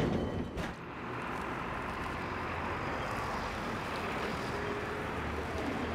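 Angels Flight funicular car running on its steep track: a clunk about half a second in, then a steady low rumble.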